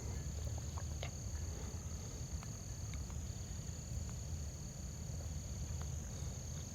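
Steady chorus of insects trilling, a continuous high-pitched drone on two steady pitches, over a low outdoor rumble with a few faint clicks.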